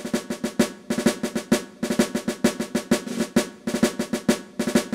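Intro music of fast snare drumming with drum rolls, a steady run of sharp rhythmic strikes.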